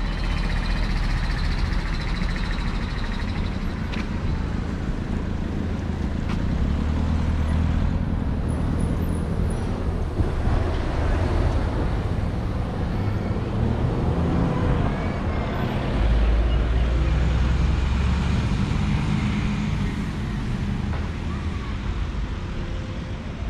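Street traffic: cars and buses running along the road, a steady low rumble that swells twice, about a third of the way in and again past the middle.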